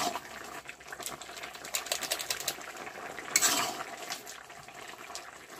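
Metal spatula stirring a boiling curry in an iron kadai: quick clicks and taps of the spatula against the pan, with a louder scrape about three and a half seconds in.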